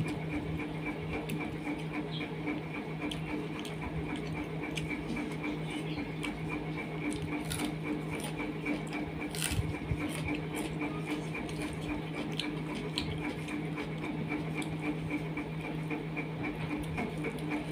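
A steady mechanical hum with a fast, even pulse, under scattered soft clicks and squishes of someone eating rice and curry by hand from a steel plate.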